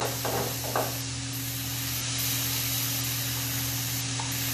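Cauliflower sizzling in oil in a hot skillet, a steady hiss, with a few short scrapes of a wooden spoon stirring it in the first second.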